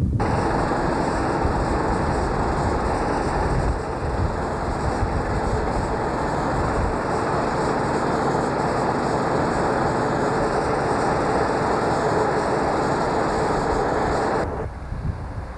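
Passenger train carriage running on the rails, heard from the coach: a steady rushing rumble of wheels and track. It cuts off abruptly near the end.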